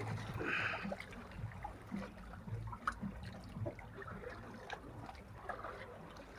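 Seawater sloshing and trickling among concrete breakwater blocks, with a few small clicks and a brief louder splash about half a second in.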